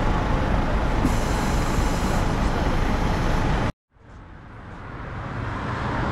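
Steady road traffic noise on a busy city street. A little over halfway through, the sound cuts out abruptly, then fades back in over a couple of seconds.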